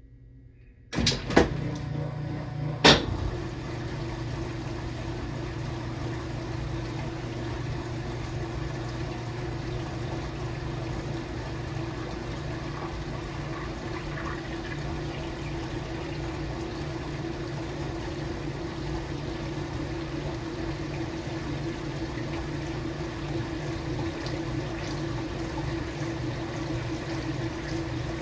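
KitchenAid washing machine starting to fill: a few sharp clicks about a second in and again near three seconds, then the steady rush of water pouring into the tub, with a constant hum.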